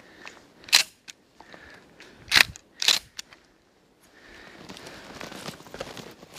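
Boots kicking and stepping into a snow-covered brush pile: three sharp cracks of snapping branches, one just under a second in and two close together about two and a half seconds in, then a softer rustling and crunching of twigs and snow over the last couple of seconds.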